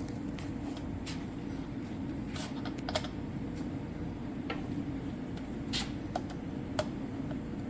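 Scattered light clicks and taps of metal bike parts being handled as a crank arm is fitted onto an e-bike's bottom bracket spindle, about eight in all, over a steady low hum.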